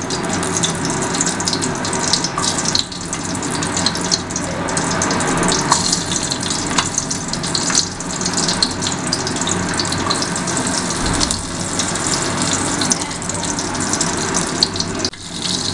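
Whole cumin seeds, a bay leaf and slit green chillies sizzling in hot mustard oil: a steady frying hiss with scattered small crackles.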